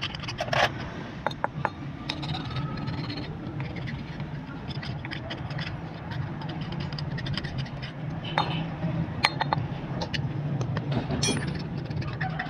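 Irregular metal clinks and scrapes of a hand tool working on a starter motor's greasy drive-end housing as it is taken apart, over a steady low hum in the background.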